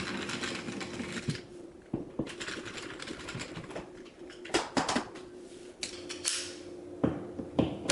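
Irregular light clicks, taps and short scrapes of a screwdriver working the screw of a plastic electrical outlet cover plate while the plate is handled, over a faint steady hum.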